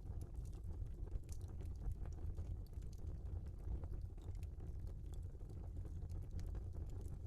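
Wood fire burning in a fireplace: a steady low rumble of flames with frequent small, irregular crackles and pops from the burning logs.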